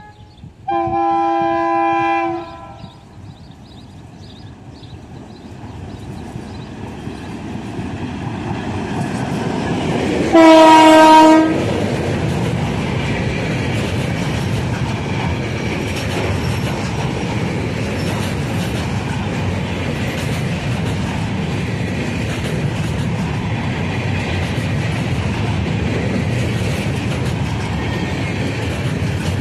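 Serbian Railways class 661 diesel locomotive (an EMD G16 with a two-stroke V16) sounding its horn twice as it approaches: a chord about a second in, then a louder, shorter blast around ten seconds in, with the train's sound building in between. Loaded container flat wagons then roll past steadily, rumbling and clattering on the rails.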